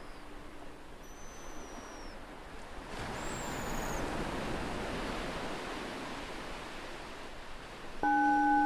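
Ocean waves washing in steadily, swelling about three seconds in, with a few faint high seagull calls. Near the end a meditation bell is struck once and rings on with a clear, steady tone, the loudest sound here.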